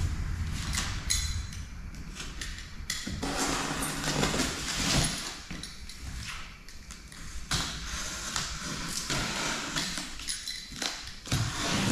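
A large cardboard shipping box being worked open by hand: irregular scraping and rustling of cardboard and tape, with a few light knocks.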